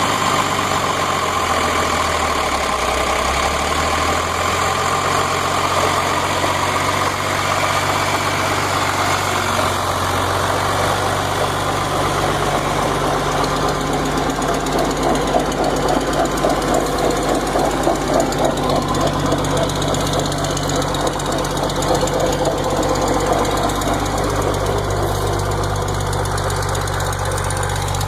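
John Deere 2955 tractor's diesel engine running with a rhythmic chuffing like a steam engine train, strongest in the middle stretch, an unexplained sound the owner is asking about.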